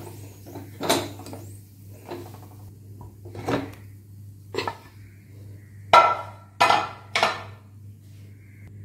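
Pressure cooker being opened and handled: a few separate metal clanks and knocks of the lid and pot, with three louder, briefly ringing ones close together near the end, over a steady low hum.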